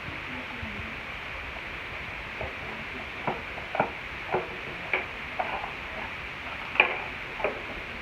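Scattered sharp clicks and small knocks from handling a Shakespeare Tiger fishing reel, about eight of them at uneven intervals starting about two seconds in, over a steady hiss.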